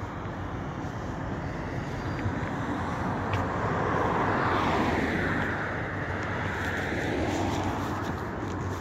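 Traffic noise: a passing vehicle swells to a peak about halfway through and fades again, over a steady low rumble.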